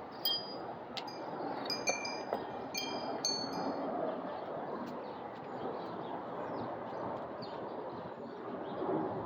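High, clear chime tones, struck several times in quick succession and ringing on briefly, during the first four seconds, over a steady background hiss.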